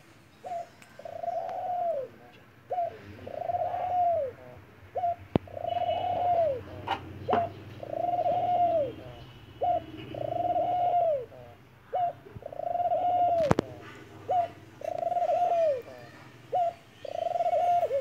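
White dove cooing over and over. Each call is a short note followed by a longer coo that rises and falls, repeated about every two seconds, eight times.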